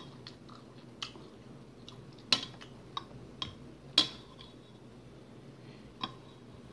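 Metal spoon clinking against a soup bowl: about seven short, sharp clinks at uneven spacing, roughly a second apart, the loudest about two and four seconds in.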